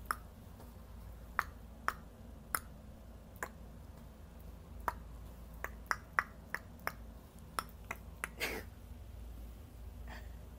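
A string of about fifteen sharp, thin finger-snap clicks at irregular intervals, one slightly longer near the end. They are someone's attempts at snapping their fingers, a thing she says she can't really do.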